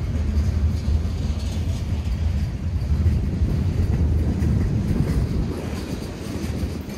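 Norfolk Southern freight train rolling past at close range: a steady low rumble of locomotive and cars on the rails.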